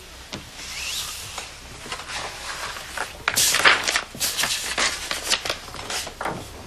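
Paper rustling as a notebook is opened and its pages leafed through, in short irregular bursts that come thickest in the second half.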